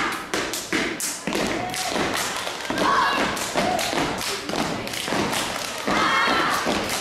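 A step team stomping and clapping in unison: a quick, rhythmic run of sharp foot stomps and hand claps, several a second.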